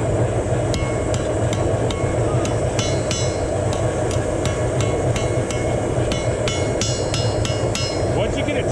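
Blacksmith's hand hammer striking hot steel on an anvil, about two to three blows a second, some with a short metallic ring, as a knife blade's tip is forged. A steady low hum runs underneath.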